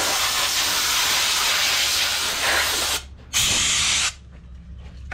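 Compressed air blowing glass shards off a dismantled car display: a long loud hiss that cuts off about three seconds in, then one shorter blast.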